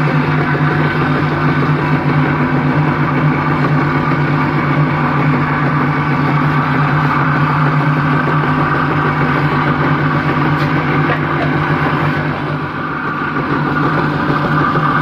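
Electric water-pump motor running steadily, driving a car alternator through a V-belt: a loud, even machine hum and whir, dipping slightly for a moment near the end.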